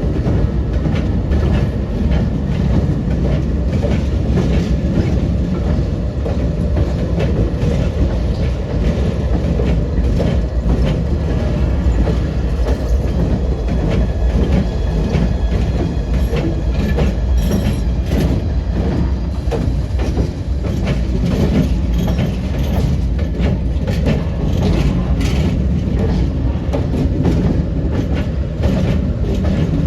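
Freight train rolling past: a steady heavy rumble with a run of wheel clicks from the rail joints.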